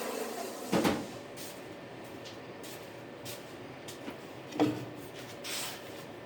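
A power sander's motor stops just after the start, followed by workshop handling knocks and clacks. The two loudest come about a second in and about four and a half seconds in.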